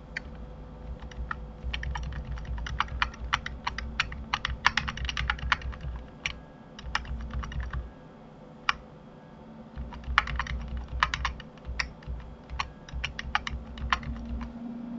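Computer keyboard keys tapping in quick, irregular runs, with a pause of about two seconds just past halfway.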